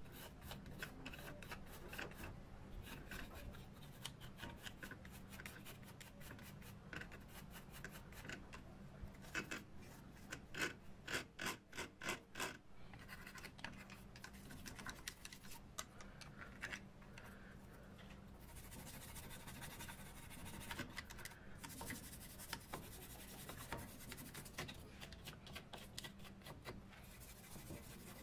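A brush scrubbing oily grime off the metal works and housing of an old Hasler Bern railway speedometer, in quick back-and-forth scratching strokes. The strokes come fastest and loudest about ten to twelve seconds in.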